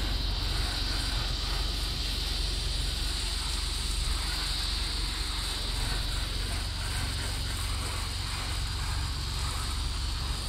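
Hand-held soft-wash spray gun spraying a sodium hypochlorite mix onto a wooden fence: a steady, unbroken hiss with a steady low rumble beneath.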